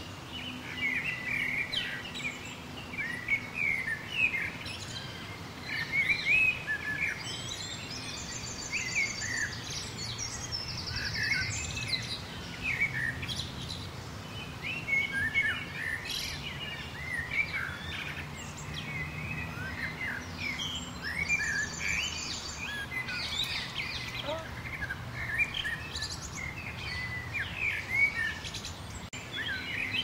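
Many wild birds singing and chirping together, short overlapping notes all through, over a faint low hum. Twice a high, rapid trill stands out, about eight seconds in and again a little after twenty seconds.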